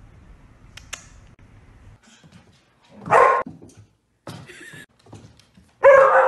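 A dog barking: two loud barks about three seconds apart, with softer short sounds between them.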